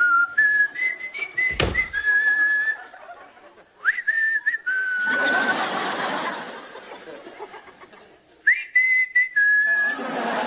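A man whistling a tune in short held notes, in three phrases, with a studio audience laughing between the phrases. A single knock sounds about two seconds in.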